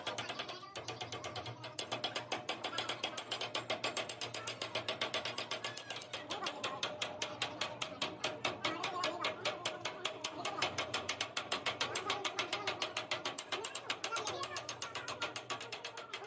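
Rapid, evenly spaced mechanical clicking, several clicks a second, from a workshop machine or tool.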